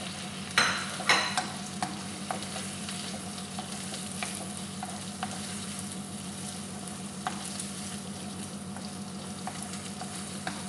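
Mushrooms and garlic sizzling as they sauté in butter in a pan, stirred with a utensil. There are two sharp knocks against the pan about a second in, then a steady sizzle with occasional light clicks.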